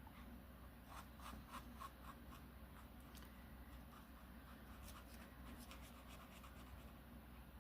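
Faint scratching strokes of a marker colouring on a paper page, at near silence.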